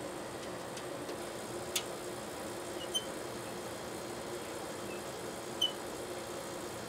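An Allen wrench working a bolt out of a metal enclosure panel, with three small clicks spread a second or more apart. Under them runs a steady low hum of equipment.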